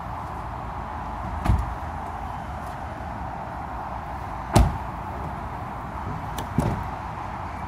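Car doors of a 2017 Toyota Prius Prime being shut and opened: three dull thuds, the loudest a little past halfway and a shorter clunk with a click just before it near the end. Steady background noise runs underneath.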